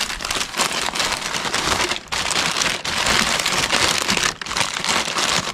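Sheets of packing paper rustling and crinkling as they are handled and crumpled inside a cardboard box, a dense crackle broken by a couple of brief pauses.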